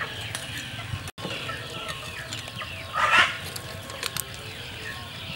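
Chickens clucking, with a louder squawk about three seconds in, over many short high chirps.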